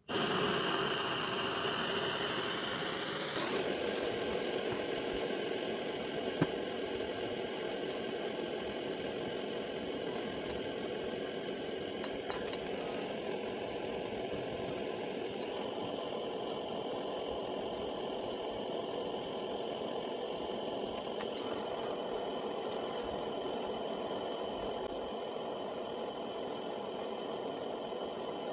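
Butane gas torch burning with a steady hissing roar, starting abruptly as it lights. Over the first few seconds a few faint tones slide down in pitch, and there is a single click about six seconds in.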